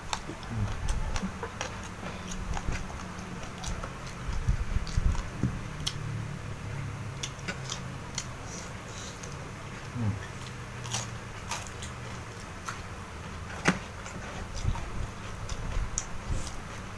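A person chewing a meal of rice, spicy salted squid and raw vegetables, with irregular mouth sounds and scattered small clicks and crunches.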